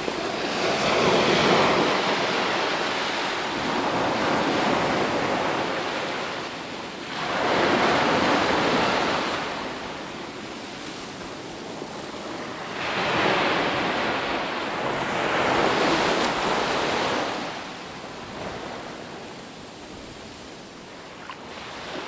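Ocean waves breaking on a shore, a rushing wash of surf that swells and recedes about every four seconds, about five breakers, before it fades near the end.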